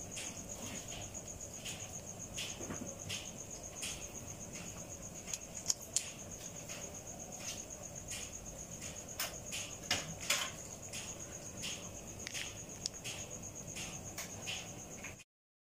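Cricket chirping in a steady, high, fast-pulsing trill, with scattered soft clicks and taps over it. The sound cuts off suddenly near the end.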